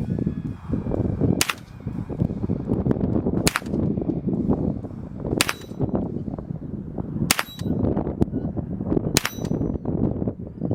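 Five single rifle shots from a Chiappa M4-22 .22 LR upper on an AR-15 lower, fired at an even pace about two seconds apart.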